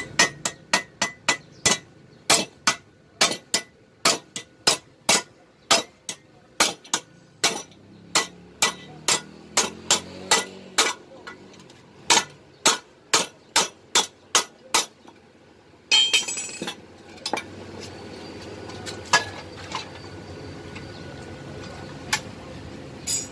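Hammer striking a welded steel swing arm on a wooden block: a steady run of sharp, ringing metal blows, about two to three a second, that stops about two-thirds of the way through. After it, a brief clatter and a few scattered knocks.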